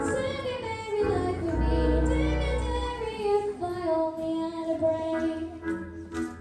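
Young voices singing a song with musical accompaniment, the sung notes held and gliding between pitches.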